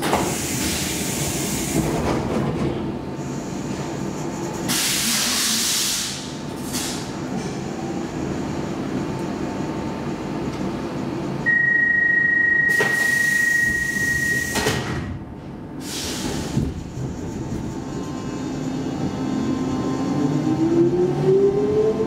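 Stockholm C14 metro train standing at a platform and then pulling away: several bursts of air hiss, a steady high beep lasting about three seconds midway, and near the end the traction motors' whine rising in pitch as the train accelerates.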